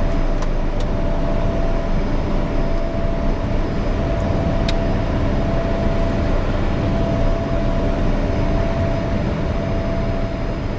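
Steady running of a vehicle: a constant rumble with one steady whine over it, and a faint click about halfway through.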